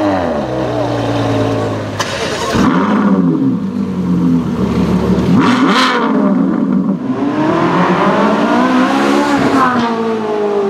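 Ferrari supercar engines being revved: several quick throttle blips in the first few seconds and another sharp one about halfway, then a car accelerating with its engine note climbing and dipping briefly, as at a gear change.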